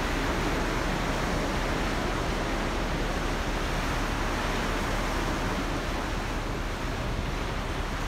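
Steady rush of sea water and wind heard from the deck of a moving ferry, with a low steady hum underneath.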